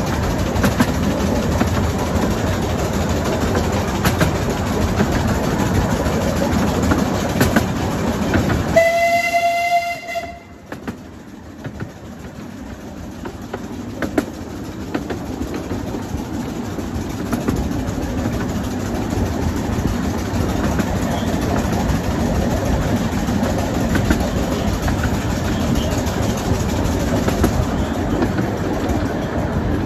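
A 12-inch-gauge miniature steam train running through woodland, with a steady rumble and clicking from the carriage wheels on the track. About nine seconds in, the locomotive gives one whistle blast of about a second and a half. After it, the running noise drops sharply and then builds back up over several seconds.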